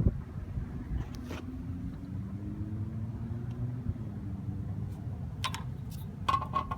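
Steady low rumble with a few light metallic clicks, the loudest near the end, as a lug nut is run by hand onto a loose wheel stud that turns with the nut instead of tightening.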